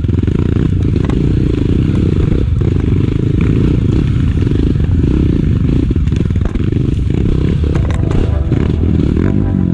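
Trail motorcycle engine running as the bike is ridden over rough ground, heard as a heavy, muffled low rumble. Near the end the engine's pitch comes through more clearly.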